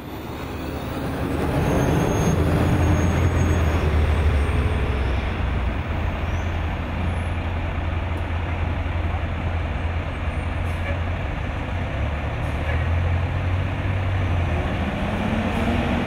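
Heavy diesel dump trucks and earthmoving equipment running, a steady deep engine rumble that fades in at the start.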